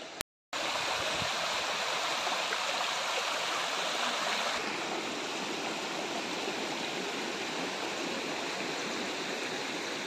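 Steady rushing of flowing water from a river and its falls, starting after a brief break right at the beginning.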